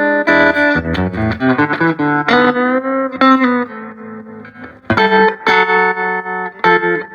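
Electric guitar played through a 1968 Fender Twin Reverb tube amp with a 15-inch JBL speaker, a sound check of chords and single notes. Playing softens to a fading held note about four seconds in, then strong chords come back about a second later.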